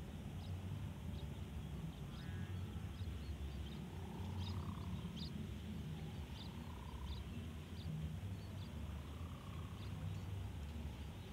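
Wind rumbling on the microphone, with a few faint bird-like chirps and scattered short ticks over it.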